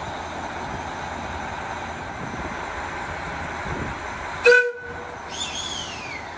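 JR Hokkaido limited express train sounding one short, sharp horn blast about four and a half seconds in, the signal that it is about to depart, over a steady rumble. A fainter falling squeal follows just after.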